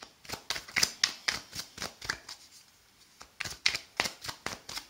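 A deck of tarot cards being shuffled by hand: a run of quick, sharp card slaps and flicks, about two or three a second, pausing for about a second halfway through.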